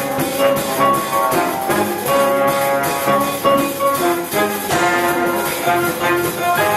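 Large live band playing an instrumental jazz piece, with trumpet and trombone lines of held notes leading over drums, tuba, saxophones and electric guitar.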